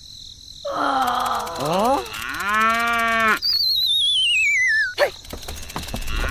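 Cow mooing twice, about a second in and again near the middle, then a high whistle that falls in pitch with a fast wobble, like a cartoon dizzy or fall effect, ending in a sharp click about five seconds in.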